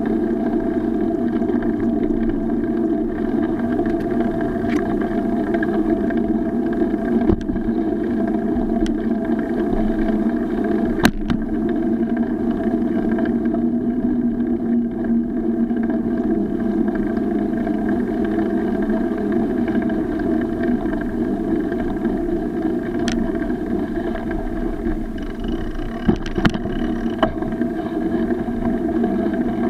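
Steady rumbling noise of riding a bicycle along a paved road, wind and road rumble heard through an action camera, with a few short sharp knocks from bumps along the way.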